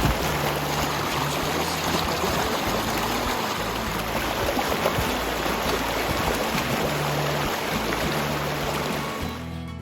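Steady rushing of a flowing stream. It fades near the end as music comes in.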